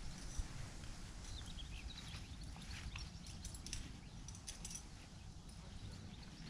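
Outdoor ambience: a steady low rumble of wind on the microphone, with faint, scattered high chirps and ticks.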